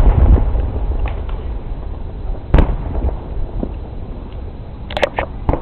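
Aerial fireworks shells bursting: one loud boom about halfway through, then a quick string of sharp crackling pops near the end, over a low rolling rumble.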